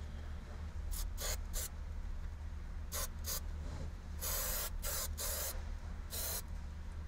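Aerosol can of 3M General Trim Adhesive sprayed in short bursts, about eight of them over a few seconds, the longest about half a second, over a steady low hum.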